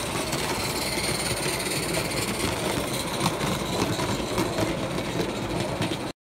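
Live-steam Mamod-based 0-6-0 model tank locomotive running under steam along the track, a steady fast rattle of exhaust beats and running gear. The sound cuts off suddenly near the end.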